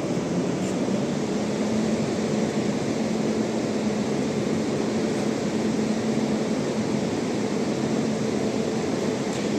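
Locomotive running steadily: an even rushing noise with a faint, steady low hum and no sudden sounds.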